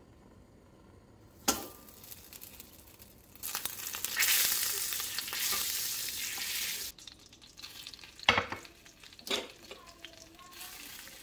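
Butter sizzling and foaming as it melts in a hot hammered copper pan while a wooden spoon pushes it around; the sizzle is loudest in the middle and cuts off suddenly. A sharp knock comes about a second and a half in, and two clicks near the end, with a fainter sizzle after them.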